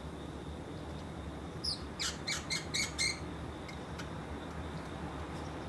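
Pacific parrotlet calling: a short falling note, then a rapid string of loud, sharp calls lasting about a second, starting about two seconds in.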